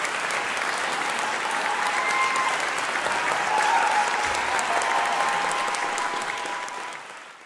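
Audience applauding: a dense, steady patter of many hands clapping, which fades out near the end.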